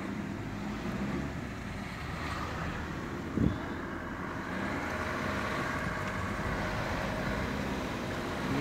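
Car driving along a mountain road: steady engine and road noise with some wind on the microphone, and a brief thump about three and a half seconds in.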